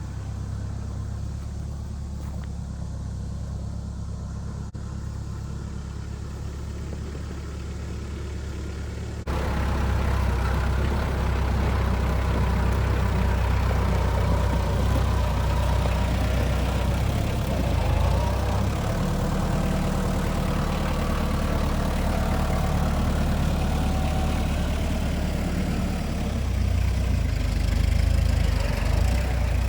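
Tractor engine running steadily, its hum getting suddenly louder and fuller about nine seconds in.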